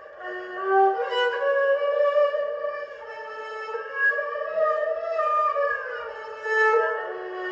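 Erhu playing a slow, sustained melody with bowed held notes and sliding pitch changes, including a downward glide past the middle.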